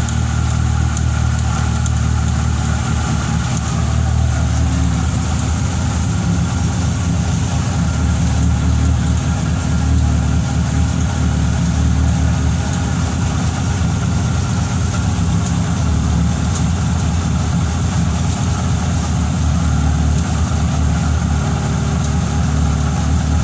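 Fiat Tempra 2.0 16V four-cylinder engine idling steadily with the abnormal engine noise the owner is showing. He cannot yet place it and wonders whether it is a rod bearing, a piston or just a worn accessory bearing.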